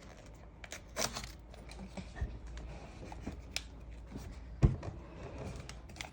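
Plastic toy blind bag being handled and pulled at in an attempt to open it: scattered crinkles and small clicks, with a dull thump about two seconds in and a louder knock a little before the end.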